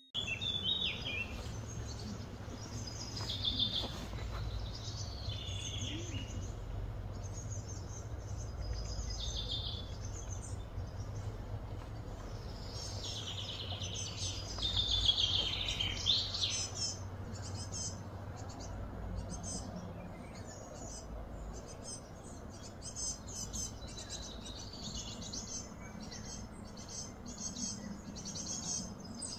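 Birds chirping and calling over and over, busiest about halfway through, over a steady low hum.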